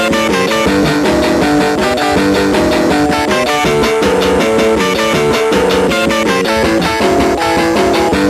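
Rock song with strummed electric guitar, bass and a steady drum beat, played back from a 1999 Barbie Dance With Me talking boombox toy.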